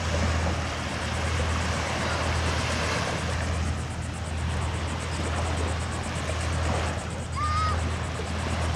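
Small waves washing onto a sandy beach over a steady low rumble, with a short high chirp near the end.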